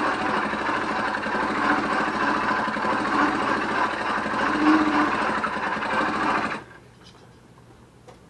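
Small two-stroke motorized-bicycle engine, a CDH Motors unit, pedal-started and running steadily, then cutting off suddenly about six and a half seconds in. Its ignition is triggered from a Hall sensor that the owner reads as firing too early.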